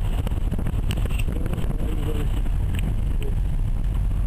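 Car driving along a dirt and gravel road, heard from inside the cabin: a steady low engine and tyre rumble, with a few sharp clicks about one, two and three seconds in.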